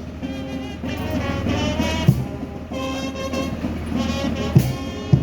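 Music: held horn-like notes in repeating phrases, with a low drum hit about two seconds in and two more near the end.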